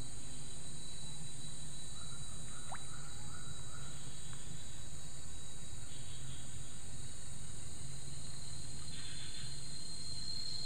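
Steady high-pitched drone of insects in dense vegetation, over a low continuous rumble. A few short chirps come about two to three seconds in.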